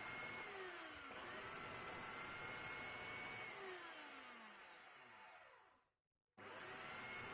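Electric chainsaw motor running with a steady whine whose pitch drops twice and climbs back, as under load or off the trigger. Near the end the sound fades, cuts out completely for a moment, and the saw is running again.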